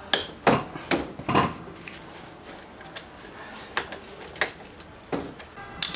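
Ratchet wrench with a hex-bit socket turning out the 8 mm Allen bolts at the foot of a scooter's front fork leg: about ten sharp metallic clicks and clinks, irregularly spaced.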